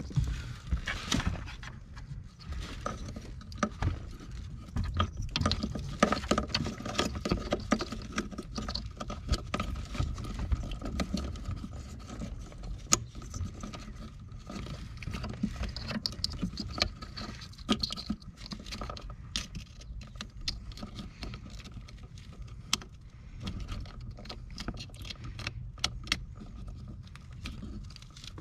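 Plastic connectors and loose wires of a Rostra cruise-control wiring harness being handled and plugged together at the accelerator pedal: many small irregular clicks, taps and rustles over a faint steady hum.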